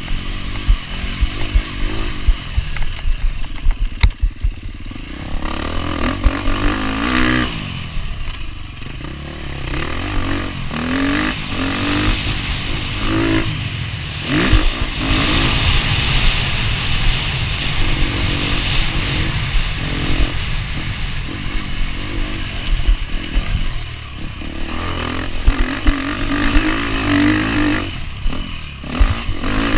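Enduro dirt bike engine revving hard, its pitch climbing and dropping again and again with the throttle and gear changes, heard close up from a camera on the bike. Short knocks and rattles from the bike bouncing over the rough dirt track run through it.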